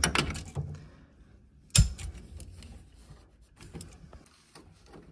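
Metal clicks and clatter of hand tools on a boiler's brass hydraulic block as a tight, corroded flow sensor fitting is worked loose, with one sharp, loud knock about two seconds in and small clicks after.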